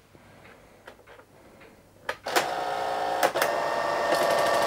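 IBM PC Convertible printer: a few faint clicks, then about two seconds in a sharp click and the printer starts running with a steady mechanical hum carrying several clear tones, and a fine rapid chatter near the end as it prints a line of text.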